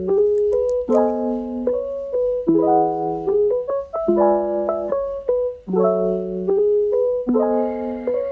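Background music: a light keyboard tune with a melody over chords struck about every second and a half.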